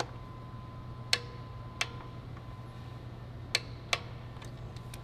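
Click-type torque wrench tightening small 10 mm coil-pack bolts, giving four sharp clicks in two pairs as each bolt reaches its 62 inch-pound setting. A steady low hum runs underneath.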